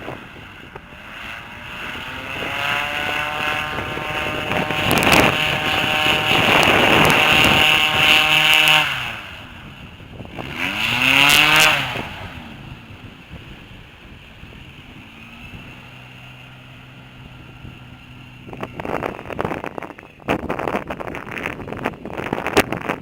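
Airboat engine and propeller revving up and holding high, easing off, revving briefly again, then settling to a lower steady run. Gusty wind buffets the microphone near the end.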